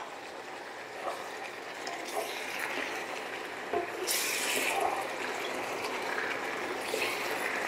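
Noodles and vegetables sizzling steadily in a hot wok, with a brief louder hiss about four seconds in.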